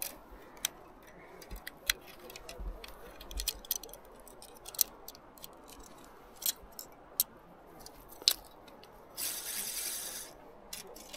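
Scattered small clicks and taps of fishing tackle being handled while a rod is rigged, with a short rustle about nine seconds in.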